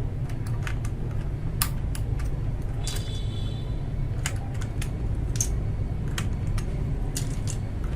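Irregular sharp plastic clicks and clacks from a mechanical keyboard being worked on, a few a second, over a steady low hum.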